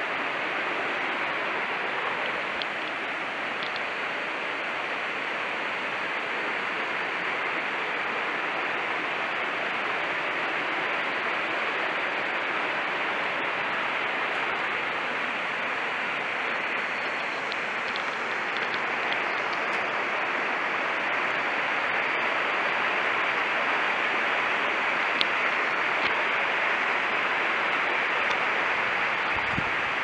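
Steady rush of falling water from a small waterfall in a wooded gorge, growing a little louder in the second half.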